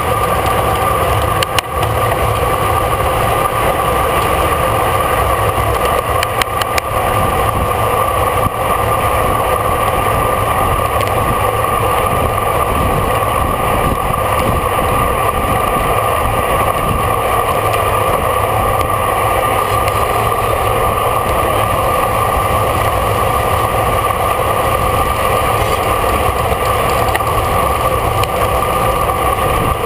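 Wind rushing over a rider-carried camera microphone at racing speed on a bicycle: a steady low rumble with a steady whistling tone over it, and a few faint clicks.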